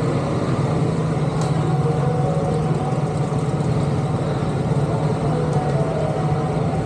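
Steady low motor hum, like an engine running at idle, unchanging throughout.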